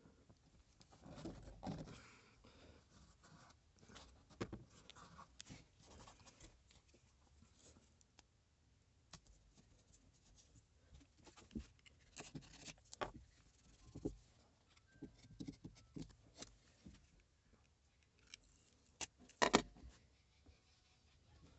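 Quiet hand handling at a workbench: scattered taps and clicks of a wooden base and a cast epoxy-resin block being moved and set down, and the rustle of double-sided tape being pulled off its roll and pressed on. Near the end comes a louder cluster of knocks as a wooden piece is set onto the block.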